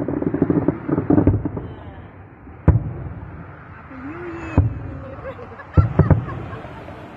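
Aerial fireworks exploding overhead: a handful of sharp bangs about a second or more apart, two of them in quick succession near the end.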